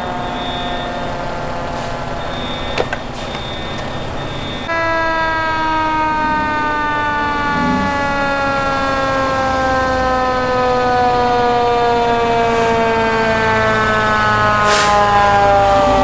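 Fire engine siren wailing, a single tone sliding slowly down in pitch. About five seconds in it jumps louder and higher, then glides down again as it gets closer.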